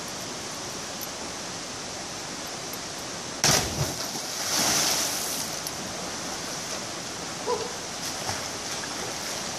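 A person plunging into a deep river pool from a high rock: one sharp smack on the water about three and a half seconds in, then about a second of spray falling back, over a steady background hiss.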